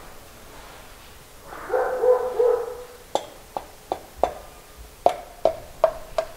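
A brief whining tone about two seconds in, then eight light, evenly spaced taps, two or three a second, some with a short ring after them. This is the butt of a hammer handle tapping an oversize piston down through a ring compressor into a bore of a Classic Mini A-series engine block.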